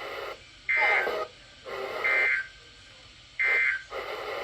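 NOAA Weather Radio receiver sounding the Emergency Alert System end-of-message data tones: three short bursts of warbling digital data tones about a second apart, marking the end of a severe thunderstorm warning.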